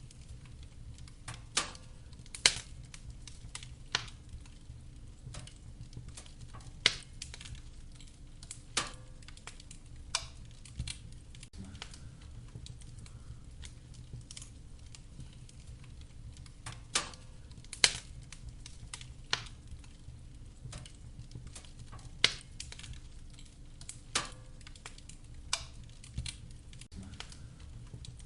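Wood fire crackling in a fireplace: sharp, irregular pops every second or two over a low, steady rumble of burning.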